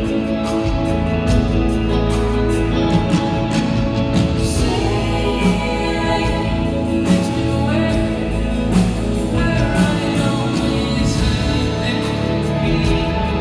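Live band performing a soft-rock ballad: a man's lead vocal over electric guitar and drums, steady throughout.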